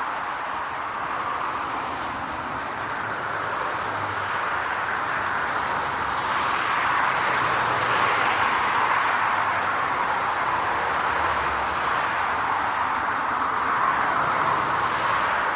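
Jet airliner engines heard as a steady, rushing noise that grows a little louder about six seconds in.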